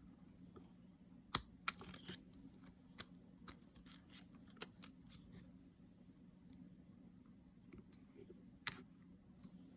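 Small plastic clicks, snaps and scrapes as a keycap is pried off a Logitech Combo Touch keyboard's key clip mechanism with a thin tool. The sharpest snaps come about a second and a half in and again near the end.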